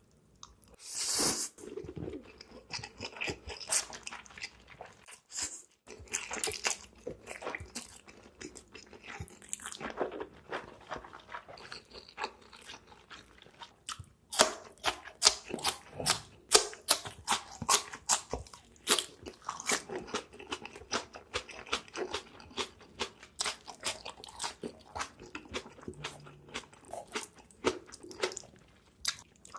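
Close-miked eating sounds: a person biting and chewing food, with many short, irregular crunchy clicks and wet smacks, denser from about halfway through.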